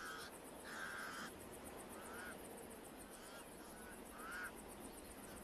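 Pied crows calling: a series of harsh, croaking caws, two longer ones at first and then shorter ones about a second apart, over a soft hiss of wind.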